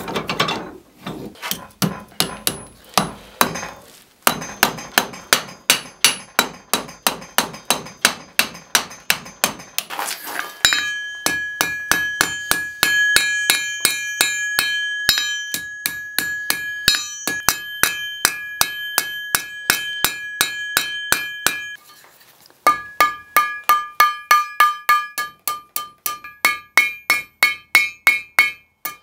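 Hand hammer striking red-hot steel on an anvil in steady blows, about two to three a second, with a short pause two-thirds of the way through. Through much of it the anvil rings with a clear, high tone after each blow.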